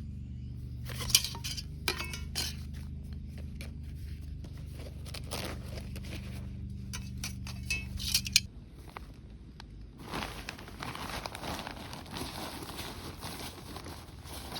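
Metal camping cookware clinking and knocking as it is handled, over a steady low hum that stops about eight seconds in. From about ten seconds in, a steady hiss.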